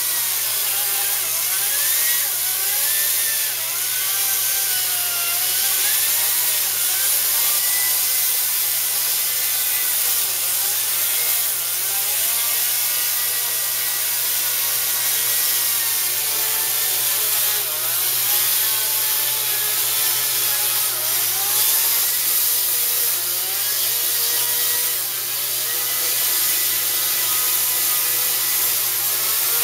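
Ryobi 40-volt cordless electric chainsaw cutting through a dead peach-tree branch, the motor's whine wavering up and down in pitch as the chain bites into the dry wood.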